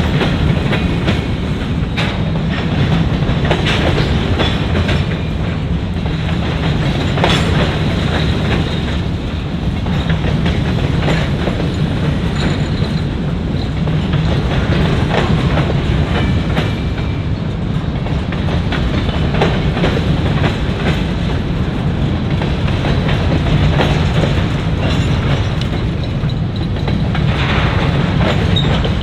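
Freight grain train rolling past: a steady rumble of the cars, with steel wheels clicking and clacking over the rail joints.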